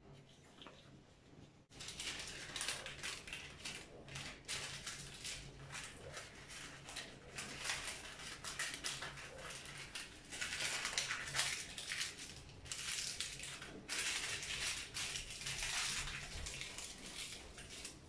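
Baking paper crinkling and rustling as it is folded and wrapped around bars by hand, starting about two seconds in as a steady run of crackles.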